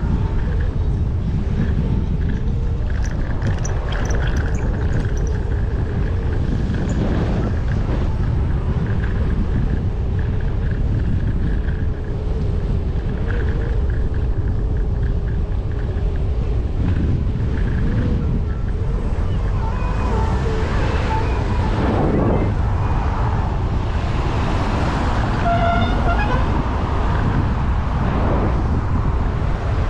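Ride on a Segway Ninebot Max electric scooter: wind buffeting the microphone and road noise, with traffic passing. A faint steady whine runs through the first half, and a few short pitched sounds come in the second half.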